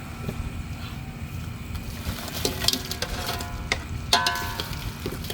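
Food sizzling as it is stir-fried in a pan, with a metal spatula scraping and clanking against the pan several times in the second half; one clank about four seconds in rings briefly.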